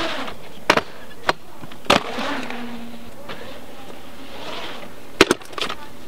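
Dirt scooter's air-filled tires rolling over concrete with a steady rolling noise, broken by four sharp knocks: three in the first two seconds and one near the end, as the scooter's wheels and deck strike the surface.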